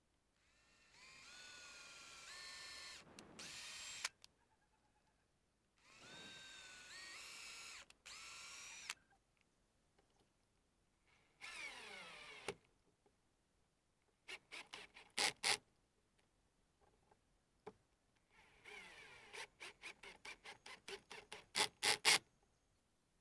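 Cordless drill drilling through the plastic wall of a storage box in two runs of a few seconds each, the motor pitch stepping up as the trigger is squeezed. In the second half it drives bolts through the wall, in strings of short trigger bursts.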